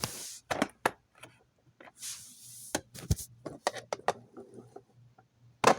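Clicks, knocks and short scrapes from handling an exit sign and emergency light combo fixture. The sharp taps come at irregular times, with a brief rubbing hiss at the start and another about two seconds in.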